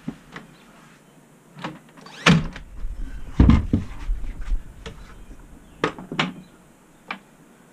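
Wooden frame pieces, bar clamps and a cordless brad nailer being handled on a workbench: scattered sharp clicks and knocks, with two heavier thuds about two and three and a half seconds in.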